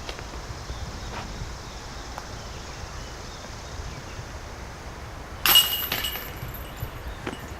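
A disc golf disc striking the chains and metal basket of a disc golf target: a sudden loud clank about five and a half seconds in, with a metallic jingle ringing on and fading over the next second or so.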